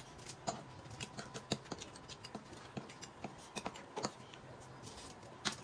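Close eating sounds: an irregular string of small clicks and smacks from chewing noodles, with spoons tapping and scraping in plastic ice-cream bowls.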